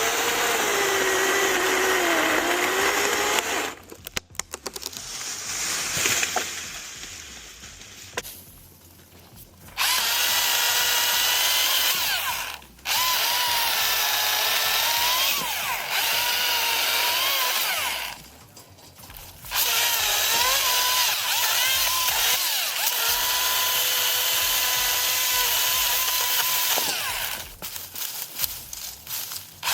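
Husqvarna 225i battery chainsaw cutting wood in several runs of a few seconds with short pauses between them. Its electric whine dips in pitch as the chain takes load in the cut.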